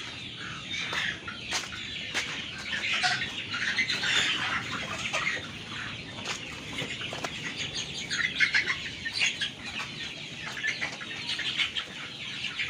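A crowded flock of young kampung chickens clucking and calling over one another, with scattered sharp clicks and some wing flapping.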